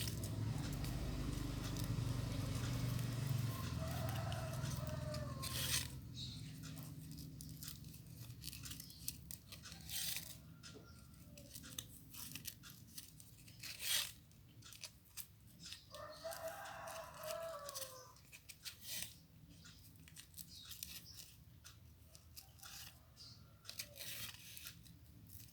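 A rooster crowing twice, about four seconds in and again about sixteen seconds in, each crow falling in pitch at its end. Between the crows there are crinkling sounds and sharp clicks from ribbon and cardboard being handled, and a low hum in the first six seconds.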